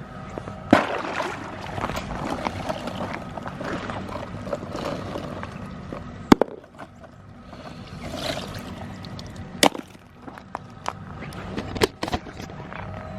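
A rock striking frozen-over water to break the ice: a few hard, sharp knocks several seconds apart, with smaller knocks and crunching between them.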